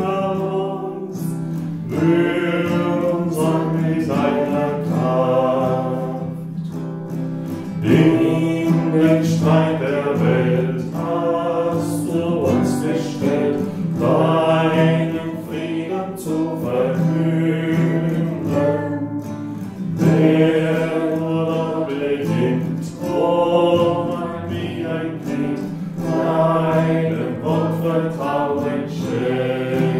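Voices singing a German church hymn with guitar accompaniment.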